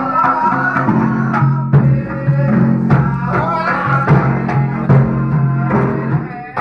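Loud live music for a Javanese angguk dance: drums strike about once a second over a sustained low bass tone, with a wavering melody line above.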